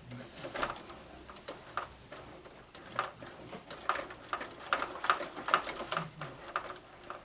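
Irregular light clicks and taps of small parts and tools being handled while working on an RC rock crawler.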